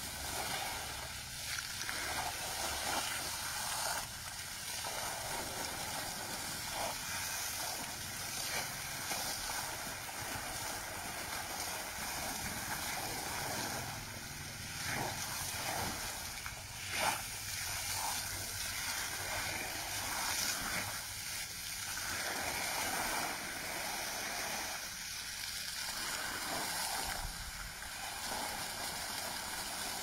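A water fountain jet spraying and falling onto wet ground, a steady hiss of splashing water, with one brief louder sound a little past halfway.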